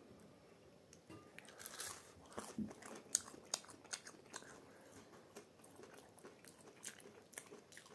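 A person chewing a mouthful of a crunchy fried snack, with faint, irregular crunches.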